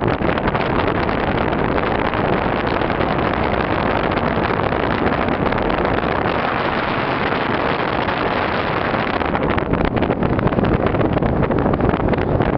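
Steady rushing road and wind noise of a car in motion, with engine hum underneath. It grows slightly more uneven near the end.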